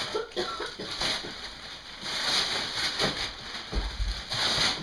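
Gift wrapping paper being ripped and crumpled off presents, in bursts of tearing and rustling, the longest about two seconds in and another near the end.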